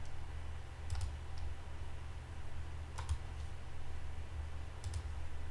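Three faint, sharp clicks, spaced about two seconds apart, over a steady low hum.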